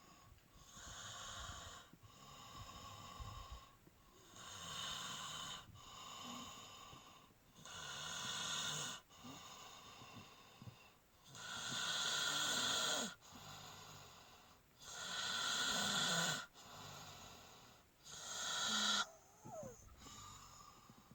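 Snoring in a slow, regular rhythm: a louder snore every three to four seconds with softer breaths between, getting quieter near the end.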